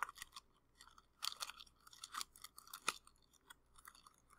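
Faint, irregular crinkling and small clicks of a plastic wrapper being handled as a plastic stirrer is taken out.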